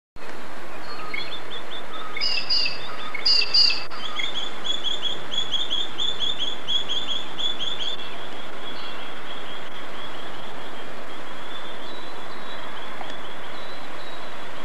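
Birds chirping in fast runs of short, high notes, with two louder, sharper calls about two and three and a half seconds in. The chirping grows fainter after about eight seconds, over a steady outdoor background hiss.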